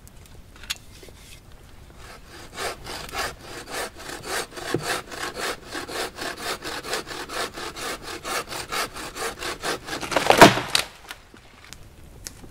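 Wooden-framed bow saw cutting through a log, with rapid back-and-forth strokes for several seconds, ending with one loud crack near the end.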